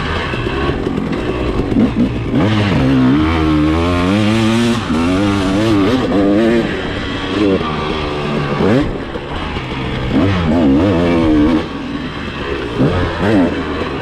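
Husqvarna motocross bike's engine being ridden hard. Its pitch rises and drops again and again as the throttle is opened and closed and the gears change through the track's turns.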